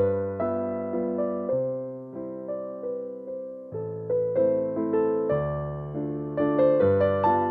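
Background piano music: gentle notes and chords struck a few times a second, each fading before the next.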